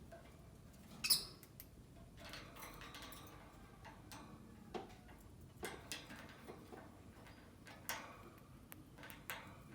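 Lovebird giving short, sharp, high-pitched chirps and squeaks, spaced out over several seconds, the loudest about a second in.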